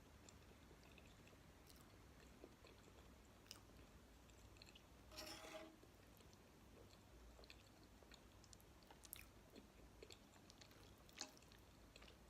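Faint close-up chewing of jello and gummy candy, with scattered soft, wet clicks and one longer, louder squelch about five seconds in.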